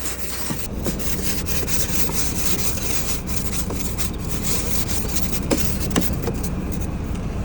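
Ice scraper rasping frozen ice off a car's windows in quick repeated strokes.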